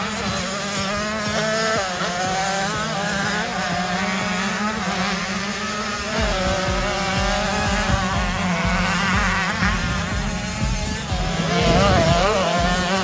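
Several 85cc two-stroke motocross bikes revving and accelerating, their engine notes wavering up and down in pitch as the riders work the throttle and shift. A steady low drone runs underneath, and the engines get louder near the end.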